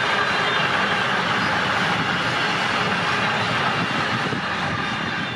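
Railway train running by: a steady rolling rush of wheels on rails.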